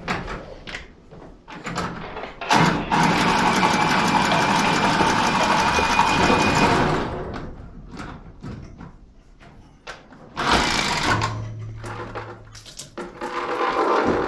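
A handheld power tool working on an overhead metal water pipe runs steadily for about four seconds, then runs again in a shorter burst near the end, amid scattered knocks and clanks of metal tools.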